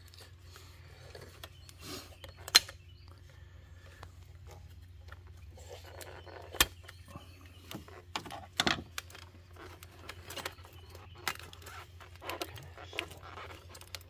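Scattered clicks, taps and rattles of hands and a small tool working plastic wiring-harness connectors and loom in a car's engine bay, with a sharp click a few seconds in and another past halfway, over a steady low hum.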